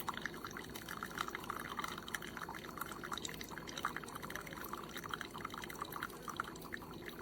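Tastyle single-serve coffee maker brewing from its grounds basket: coffee trickles and drips steadily into a mug by gravity flow, not pumped under pressure, with a constant patter of small splashes.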